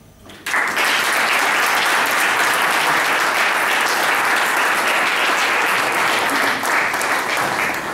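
Audience applauding, breaking out suddenly about half a second in and carrying on steadily.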